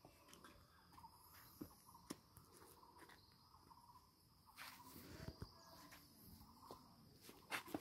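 Near silence: faint steady insect chirring with a few soft scattered clicks and scuffs, the sharpest near the end.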